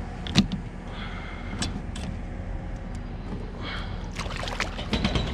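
Large black drum splashing and thrashing at the surface beside a kayak as it is pulled up by the line; the splashing picks up about four seconds in. A few sharp knocks come earlier, over a steady low rumble.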